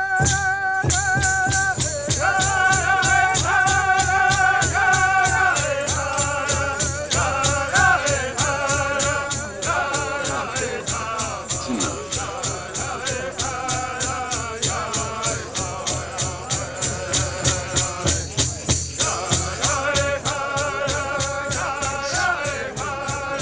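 A Native American-style rain-dance song: high voices chanting over a steady, even beat on a large hand drum played with padded beaters.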